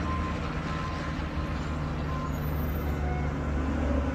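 Heavy diesel truck engine idling, a steady low drone.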